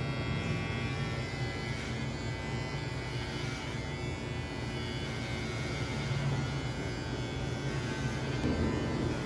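Electric hair clippers running with a steady buzz as they cut hair, worked over a comb.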